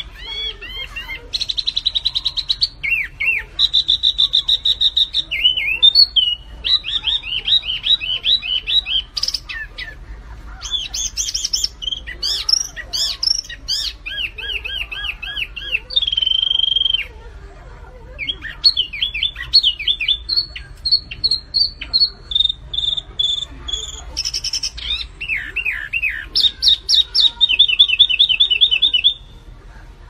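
A small caged songbird, of the kind sold as resembling a flamboyan, singing vigorously without letup. Its song is a rapid run of high repeated notes, trills and short falling whistles in quickly changing phrases, with a brief lull about halfway through.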